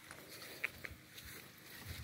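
Faint outdoor background with two brief high ticks a little over half a second in.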